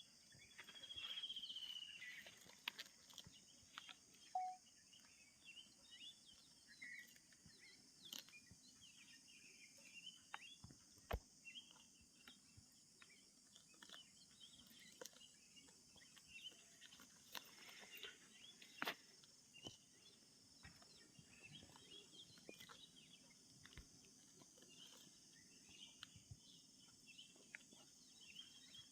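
Near silence: faint outdoor ambience with a steady high hiss, scattered faint bird chirps and light clicks. A short falling whistle comes about a second in.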